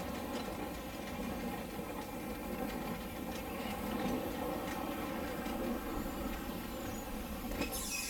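Narrow-gauge steam train rolling slowly past, its coach and wagons rumbling with faint irregular clicks from the wheels on the track. Near the end a loud hiss of steam starts suddenly.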